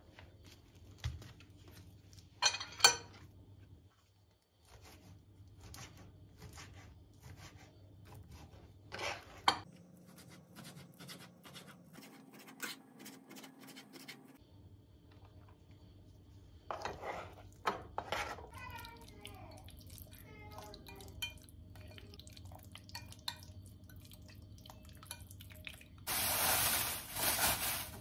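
Knife cutting raw chicken breast into cubes on a plastic cutting board: scattered taps and clicks of the blade on the board, with a few louder knocks. Near the end, plastic wrap crinkles loudly as it is handled.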